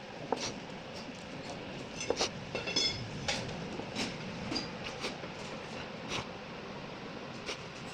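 Hand tools and metal parts clinking and knocking at irregular moments over a steady background noise, with one clink about three seconds in ringing briefly.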